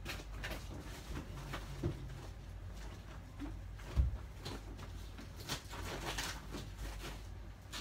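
Scattered knocks, clatter and rustling of household things being handled and packed, with a dull thump about four seconds in.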